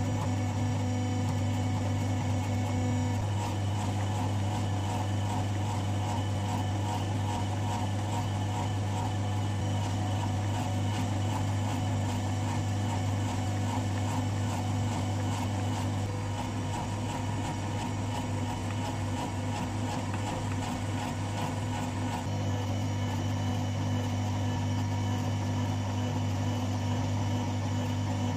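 Hydraulic forging press running, a steady electric hum from its motor and pump as red-hot steel is squeezed between its dies, with no separate blows.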